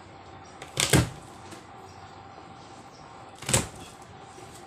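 Kitchen knife chopping onto a cutting board while slicing garlic and onion: two sharp chops, about a second in and again a couple of seconds later, over a faint steady hum.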